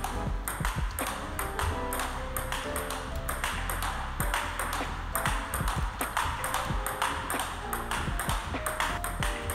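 Table tennis rally: the celluloid-type ping-pong ball clicking off rubber-faced rackets and bouncing on the table in a quick, regular rhythm of hits, with background music playing underneath.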